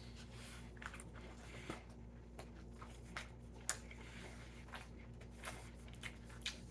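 A person chewing a mouthful of sub sandwich, faint with soft irregular mouth clicks, one sharper click about three and a half seconds in.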